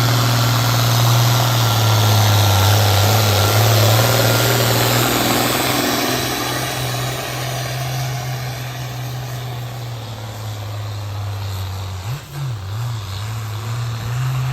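Diesel truck engine running steadily with a constant low drone; a broad hiss over it dies down after about six seconds.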